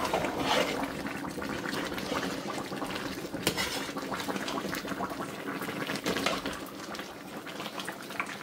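Pot of cassava leaf soup boiling hard, a steady bubbling with thick bubbles bursting and popping, a few pops louder than the rest.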